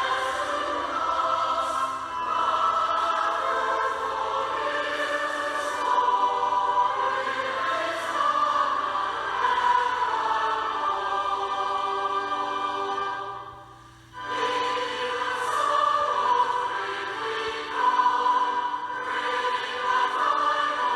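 Choir singing a song, with a short break about two-thirds of the way through before the singing resumes.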